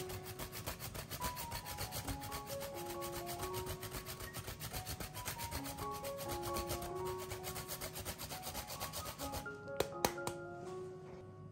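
Block of Parmigiano Reggiano grated on a flat stainless-steel hand grater: rapid scraping strokes that stop about nine and a half seconds in, followed by two sharp clicks. Light background music with mallet-percussion notes plays underneath.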